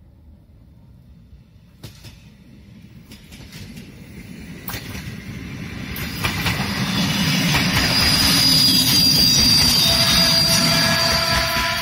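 Diesel railcar approaching and passing close by. Its rumble grows steadily louder and is loudest in the second half as the cars go past, with clicks of the wheels over the rail joints and a thin high wheel squeal.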